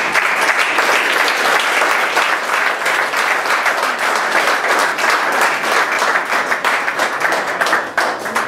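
Small audience applauding: dense, steady hand-clapping that begins to thin out near the end.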